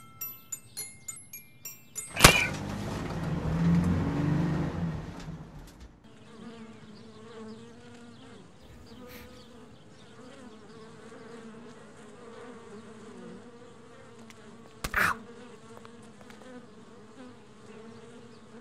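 Cartoon fight sound effects: a few bright mallet-percussion notes, then about two seconds in a loud crash that runs into some four seconds of scuffling brawl noise. After it a faint wavering buzz carries on, broken by one sharp hit about three-quarters of the way through.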